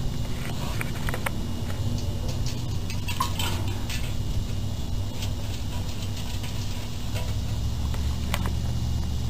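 A raccoon's paws dabbling in a shallow tub of water, giving small splashes and clicks that are busiest about three seconds in, over a steady low hum.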